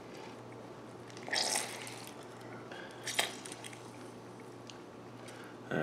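Half a lemon squeezed in a handheld metal citrus press: a short squelch of juice about a second and a half in, then a sharp click about three seconds in, over a faint steady hum.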